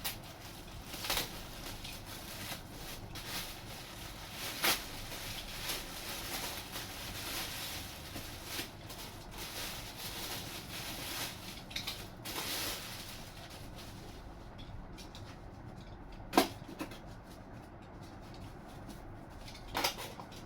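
Packaging being handled as taped-up model aircraft parts are unwrapped: rustling and peeling of tape and wrapping for the first dozen seconds, then quieter, with a sharp knock of a part set down a few seconds later and another near the end.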